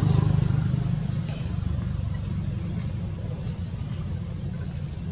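Motor vehicle engine running with a steady low hum that fades over the few seconds.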